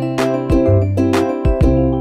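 Background music: held pitched notes over a steady beat of sharp strikes about every half second.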